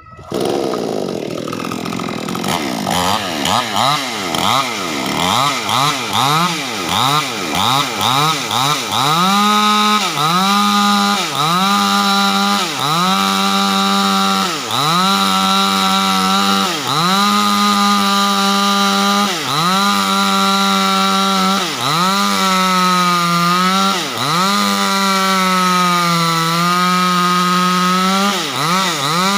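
Proquip mini chainsaw revving up and down in quick rises and falls, then held at high speed ripping lengthwise through a large wooden beam. Its pitch dips briefly every second or two as it loads up in the cut.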